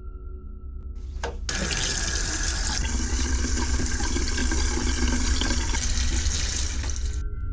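Bathroom sink tap running. The water comes on suddenly about a second and a half in, runs steadily and cuts off abruptly near the end, over a low steady hum.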